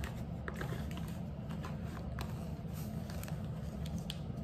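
Small scattered clicks, taps and rustles of Ray-Ban sunglasses being handled and slipped into their soft leather case, over a steady low hum.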